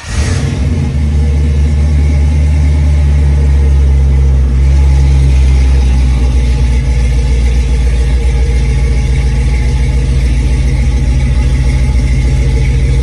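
1982 Chevrolet C10 pickup's engine idling loudly and steadily.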